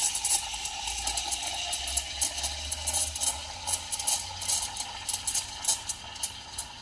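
Steam wand of a Quick Mill Rubino heat-exchanger espresso machine steaming milk for a latte: a steady hiss with frequent sharp crackles, slowly getting quieter.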